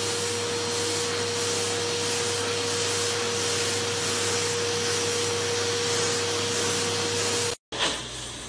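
Vacuum cleaner running steadily, a hiss of air with a constant whine, its wand held against a cat. It cuts off suddenly near the end.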